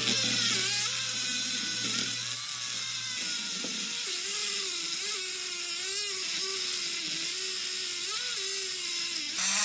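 A cheap Dremel rotary tool with a thin cutoff wheel grinding into a laminated steel padlock. The motor whine wavers up and down as the tool bogs under the load, and it stalls out quite a bit.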